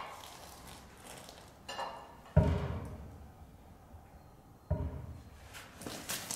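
Two heavy thuds about two seconds apart, each dying away over about half a second.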